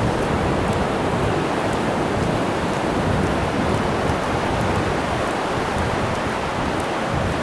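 Steady rushing noise of ocean surf washing onto a beach, mixed with wind on the microphone.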